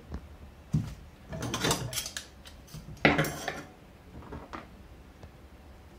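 Kitchen handling noises from a plastic bag and a metal pot of lentils: a few separate rustles and knocks, the loudest about three seconds in.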